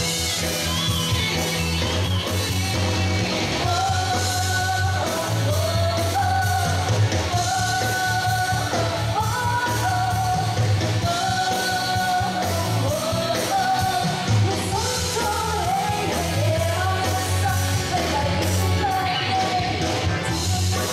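Live band playing an upbeat Cantonese pop song over a steady bass beat, amplified through a PA system. A woman's lead vocal comes in a few seconds in.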